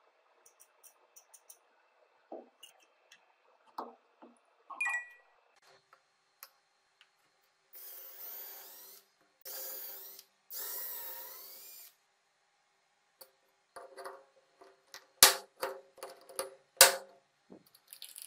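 Small electric drill running in three short bursts, its pitch wavering, as it bores pilot holes into wood through a brass hinge's screw holes. Light clicks come before it, and a run of sharp knocks and clicks follows, the two loudest about a second and a half apart near the end.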